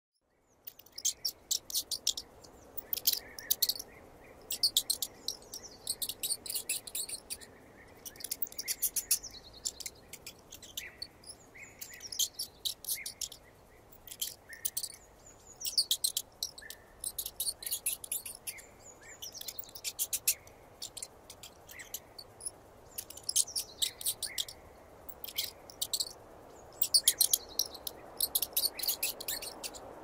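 Mouse squeaking: rapid runs of high, thin chirps in short bursts every second or two, over a faint steady hiss.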